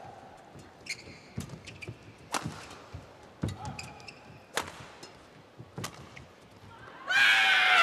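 Badminton rally: racket strikes on the shuttlecock about once a second, five in all, with short shoe squeaks on the court between them. Near the end a loud shout cuts in.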